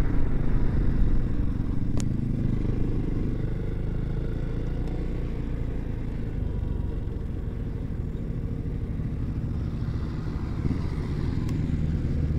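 Yamaha Xmax scooter engine running steadily, with a low even hum and road noise. A single sharp click comes about two seconds in.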